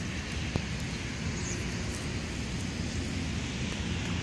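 Wind buffeting the microphone: a steady rumbling hiss, with one sharp click about half a second in.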